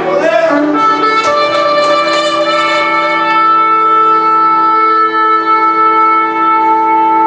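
Shofars blown in long, steady blasts, several pitches sounding together. A voice calls out over them in the first second.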